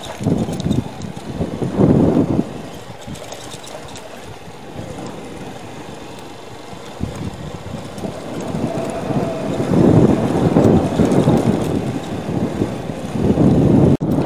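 Motorcycle being ridden along a rough dirt track: the engine runs under road and wind noise, which swells louder at times.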